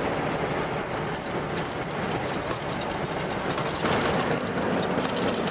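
Four-wheel drive heard from inside the cab while driving a corrugated sandy track: a steady engine and tyre rumble with constant fine rattling from the bumpy surface. About four seconds in, the noise grows louder and hissier.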